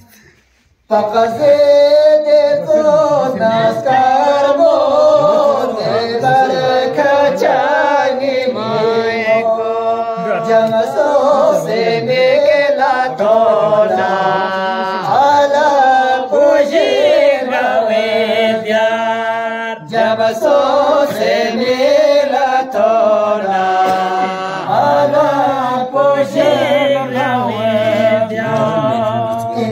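Men's voices chanting verses unaccompanied in long, held, wavering notes, starting about a second in after a short pause.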